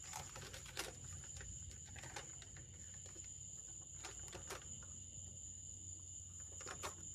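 Faint scattered clicks and rustles of paper and packaging being handled, over a steady faint high-pitched whine.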